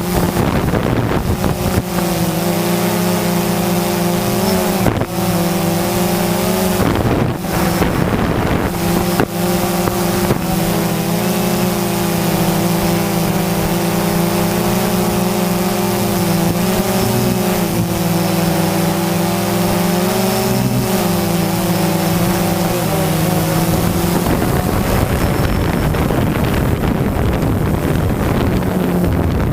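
DJI Phantom 2 quadcopter's motors and propellers humming steadily, the pitch wavering slightly as the drone adjusts its thrust, with wind rushing over the microphone. The hum fades out about three-quarters of the way through, leaving only the wind noise.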